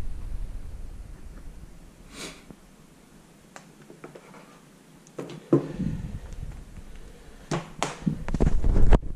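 Handling noise from a convertible laptop: soft rubbing and a few knocks as it is moved on a table and its screen is folded back on its hinge. There is one knock about five and a half seconds in and a cluster of sharper knocks near the end.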